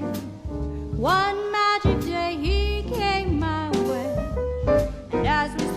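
Jazz ballad music: a singer's voice gliding through long notes without clear words over keyboard, upright bass and drums.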